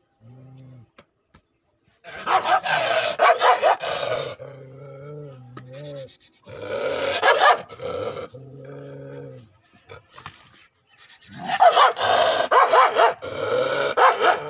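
A dog barking in three loud bouts of rapid barks, with lower drawn-out calls between the bouts.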